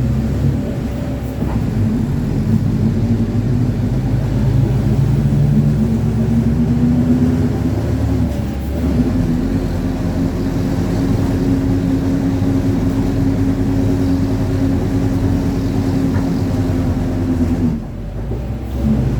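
Mercedes-Benz OF-1721 bus running under way, with a steady growl from its rear differential over the engine and road noise. The growl steps up in pitch about nine seconds in, and the sound dips briefly near the end before picking up again.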